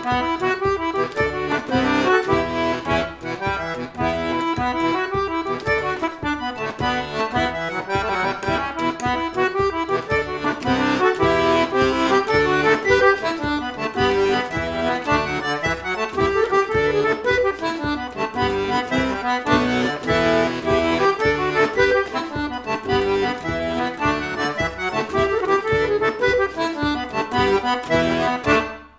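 Button accordion playing a jig: a quick, even, rhythmic melody over steady accompaniment, with a brief break in the playing right at the end.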